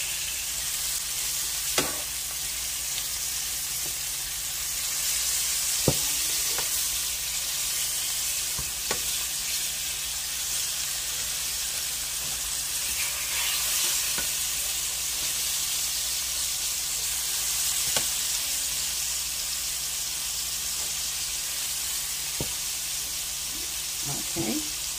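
Floured lamb chops sizzling steadily in hot oil in a nonstick skillet as they brown over medium heat, with a few sharp clicks of a metal meat fork against the pan as the chops are turned.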